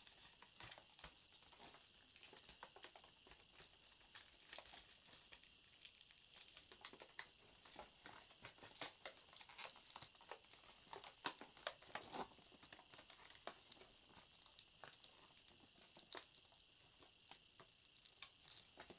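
Faint, irregular clicks, taps and rustles of toy packaging being handled and pried at to free the toy from its box, a few slightly louder ones near the middle.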